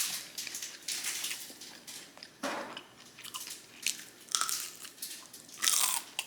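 A person biting and chewing crispy fried chicken wings: irregular sharp crunches, louder near the end.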